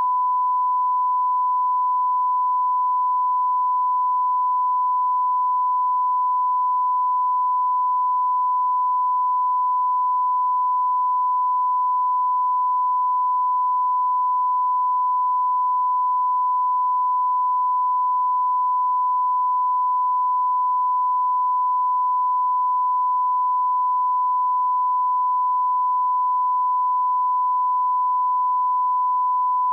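Broadcast line-up test tone: one steady, unbroken pure beep at a thousand hertz, the reference tone that goes with SMPTE colour bars.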